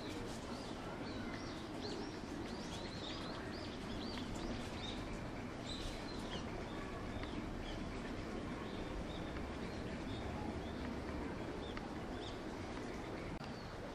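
Many small birds chirping in quick, short, high calls that come thick and fast, over a steady low background rumble.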